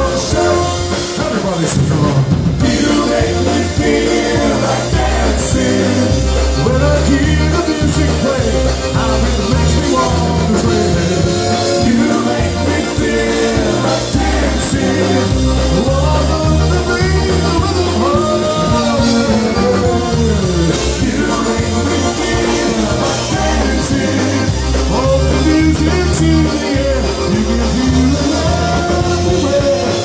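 Live polka band playing a song with a man singing lead: concertina, accordion, electric bass guitar and drum kit over a steady bass pulse.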